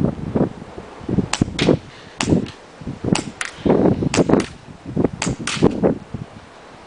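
Airsoft guns firing: a run of sharp snaps, mostly in quick pairs, four or five pairs over a few seconds, with duller rustling between shots.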